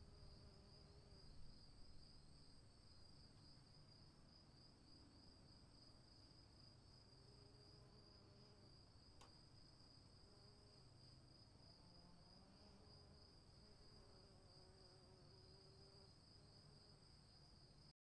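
Faint, steady chirring of insects: a high, slightly pulsing drone. A low rumble fades away in the first couple of seconds, and there is a single faint click about nine seconds in.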